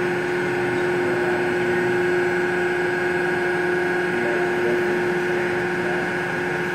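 Davi CNC plate roll running, a steady machine hum with a constant whine in it.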